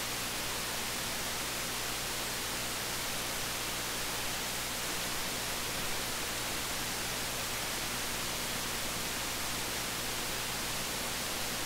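Steady hiss of amplified op-amp noise from an OPA1662 noise-test circuit running at a gain of 101, which measures −80.5 dB of noise. A low hum sits underneath.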